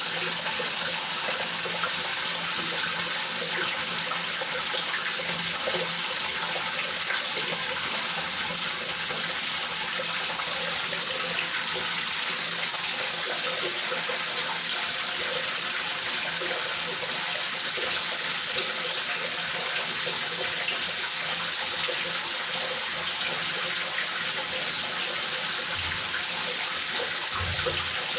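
Steady rain falling, an even, unbroken hiss of water, with two brief low rumbles near the end.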